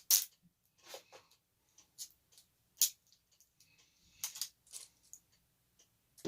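Irregular sharp clicks and short rattles of plastic packaging and small parts being handled and unpacked, with the loudest clicks right at the start and a little before three seconds in.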